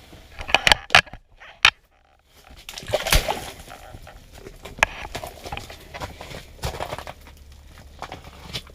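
Irregular splashing and sloshing with sharp knocks, broken by a brief drop to silence about two seconds in.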